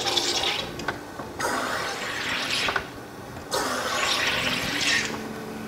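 SodaStream Fizzi carbonating a bottle of Coke-flavoured water: compressed CO2 hisses into the bottle in three presses of the top button, each a second or two long with short pauses between.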